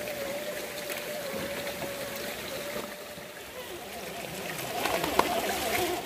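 Running water with the steady whine of an RC crawler truck's electric motor; the whine fades out midway and returns higher in pitch about five seconds in, with one sharp knock.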